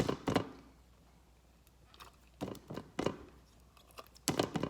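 Sticky clear slime being squished and pulled by hand, giving short wet clicks and pops in three brief clusters: at the start, around the middle and near the end.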